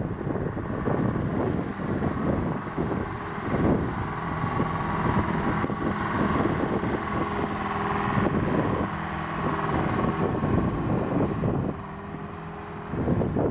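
Hein-Werner C12HD crawler excavator's diesel engine running steadily under hydraulic load as the upper structure swings round, with irregular knocks. The engine drops in level briefly near the end.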